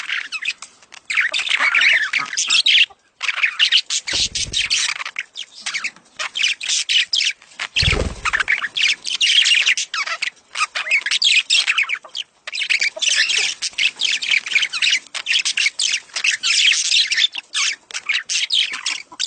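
Budgerigars chattering and warbling in rapid, continuous squawks and chirps: budgie mating calls used to encourage a hen to breed and lay. A couple of short low thumps come about four and eight seconds in.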